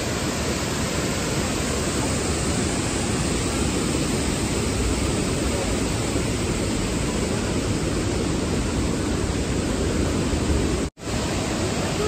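Steady roar of a large waterfall in full monsoon flow, a continuous rushing of water, cutting out for a moment near the end.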